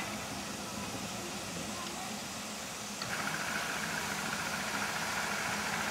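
Small narrow-gauge steam locomotive running slowly, with a steady low hum. About three seconds in, a steady hiss of steam starts suddenly and gets louder.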